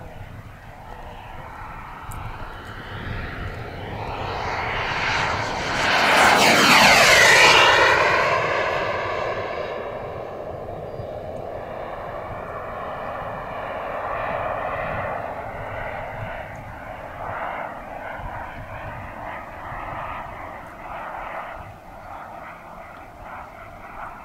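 Radio-controlled scale model Fouga Magister (Tzukit) jet flying past, its engine whining. The whine grows louder to a peak about seven seconds in, drops steeply in pitch as the model passes, then carries on as a steadier, fainter whine while it flies off.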